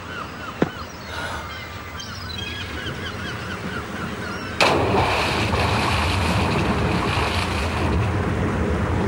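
Birds calling in short, repeated cries over a low background. About halfway through, the sound cuts suddenly to loud, steady rushing water: surf and waves churning.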